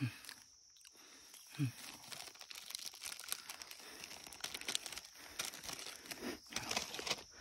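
A tired man breathing hard, with two short voiced exhales falling in pitch in the first two seconds. Then a dense crackling rustle close to the phone's microphone, like dry grass and stiff jacket fabric being shifted.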